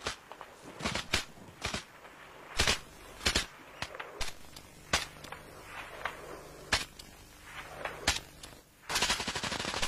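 Scattered single gunshots at irregular intervals, then, about nine seconds in, a sustained burst of rapid automatic machine-gun fire.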